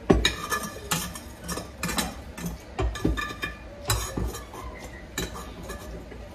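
Dishes and cutlery clinking and knocking as a table is set, a series of sharp clinks, some of them ringing briefly.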